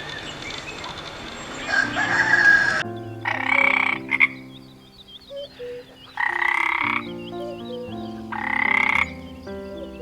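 Frog croaking: three loud croaks about a second long, a few seconds apart, over a faint high chirping chorus and soft background music.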